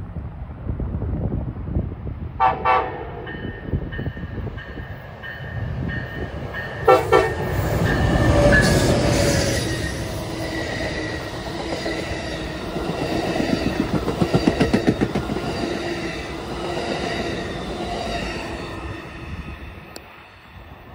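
Amtrak passenger train with Superliner bilevel cars passing close by. Its locomotive horn sounds about two seconds in and again, louder, around seven seconds. The cars then rumble past with wheels clicking over the rail joints, the sound fading near the end as the train moves away.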